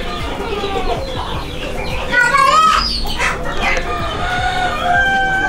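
Chickens: a rooster crowing, with a crow about two seconds in and a long, drawn-out one near the end, and clucking between.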